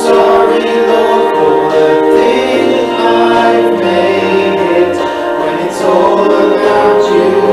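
Congregation singing a worship song, steady and continuous, with musical accompaniment.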